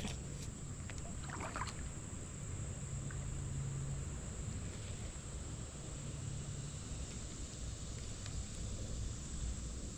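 Steady outdoor background: a low hum with an even hiss over it and no distinct event.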